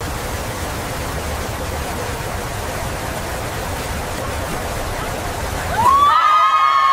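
Steady, even rushing hiss, then near the end a woman lets out one high, held cry of surprise that rises at the start and falls away at the end.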